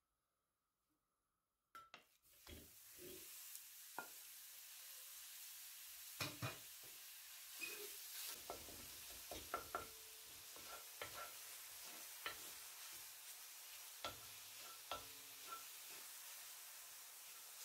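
Minced beef starts sizzling in a hot pan about two seconds in, a steady hiss, while a wooden spoon scrapes and taps against the pan as the meat is broken up and stirred.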